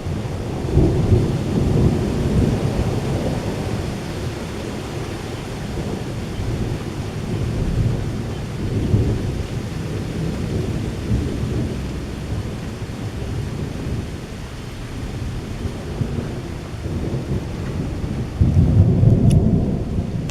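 Thunder rumbling on and off over steady rain in a strong thunderstorm, swelling in several long rolls, the loudest near the end.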